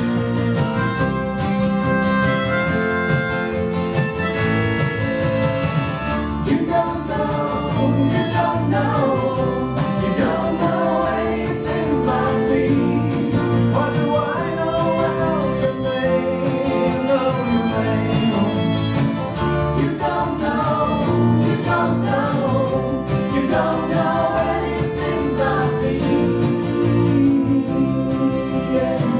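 Live acoustic music: a song played on guitar with singing.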